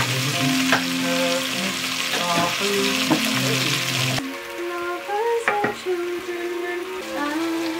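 Floured beef chuck cubes sizzling as they brown in a frying pan, stirred with a wooden spoon. The sizzle cuts off suddenly about four seconds in, leaving background music.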